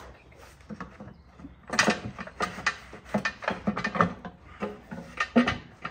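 Metal clicks, knocks and rattles from a Chieftain tank's turret control box being handled as its front cover is worked loose and pulled open, a quick irregular string of them from about two seconds in.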